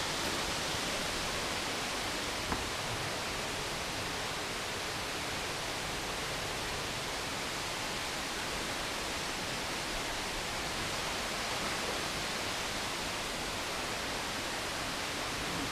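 Steady rush of flowing water from a creek or waterfall: an even hiss that never changes, with one faint click about two and a half seconds in.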